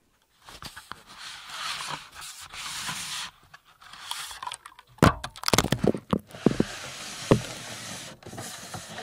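Handling noise from a camera: rubbing and scraping, then a run of sharp knocks about five seconds in, the last and one of the loudest near seven and a half seconds, as the camera is lowered into the water under the ice.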